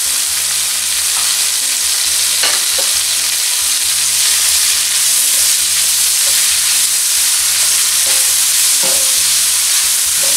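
Chopped spinach sizzling in hot oil in a frying pan with sautéed carrot, onion and red pepper: a steady hiss that grows a little louder partway through, while a slotted spoon stirs the greens through the pan.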